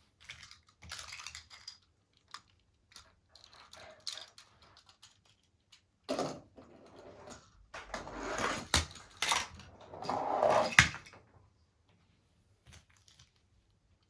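Hard plastic toy vehicles being handled and moved about: irregular clicks, rattles and scrapes in bursts with short pauses, busiest and loudest a little past the middle.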